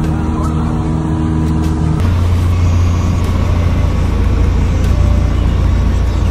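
Light single-engine aircraft heard from inside the cockpit: a steady engine drone for about two seconds, then the sound changes abruptly to a heavy low rumble with a rushing noise as the plane comes in to land.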